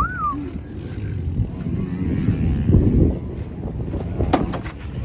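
Ford pickup truck idling with a low, uneven exhaust rumble from its aftermarket exhaust tip. Near the end, a few sharp clicks as the tailgate latch is released.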